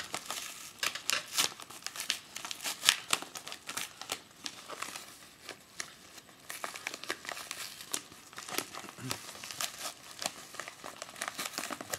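Shipping packaging being opened by hand: irregular crinkling and crackling, with some tearing.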